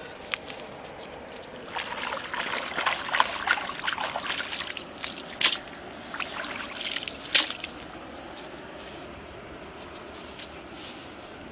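Water trickling and splashing in short bouts, with a few sharp clicks in between, then settling to a quiet steady background for the last few seconds.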